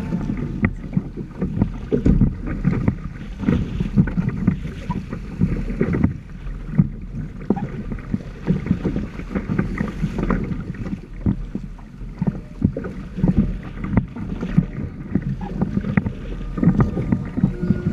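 Water slapping and splashing against the hull of a Hobie Tandem Island sailing trimaran under way, in irregular slaps, with wind buffeting the microphone.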